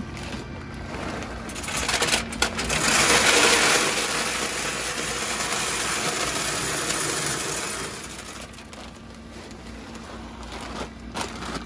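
Hickory wood pellets pouring from a bag into a pellet smoker's empty metal hopper, a dense rattling hiss of pellets striking the metal grate and walls. It starts about two seconds in, is loudest soon after, and tails off around eight seconds in.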